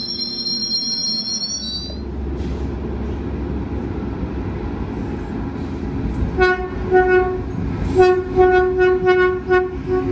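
High wheel squeal from a passing COASTER bilevel coach for the first two seconds. Then a low diesel rumble from an arriving NCTD SPRINTER diesel railcar, which sounds its horn in two short toots and then a quick run of short toots.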